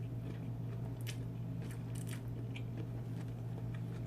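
A few short, sharp clicks and crinkles of takeout food and containers being handled, over a steady low hum.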